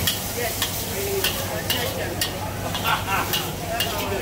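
Char koay teow being stir-fried in a wok: a metal spatula and ladle scrape and clank against the wok about twice a second over a steady sizzle and a low hum.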